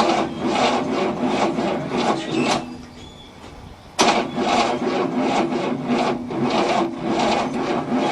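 1967 Cadillac V8 turned over by its starter motor, cranking slowly in an even chug of about four compression strokes a second without firing. The cranking stops about two and a half seconds in and starts again sharply after a pause of over a second. It is not cranking fast enough to start, on a weak battery and jumper cables.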